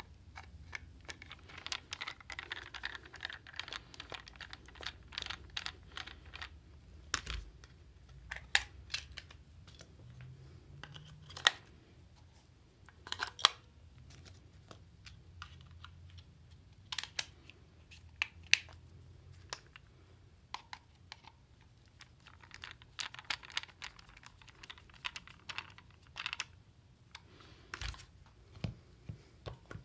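Hands handling Amazon Echo Buttons and their packaging: irregular small plastic clicks and taps, a few sharper clacks, and stretches of soft rustling.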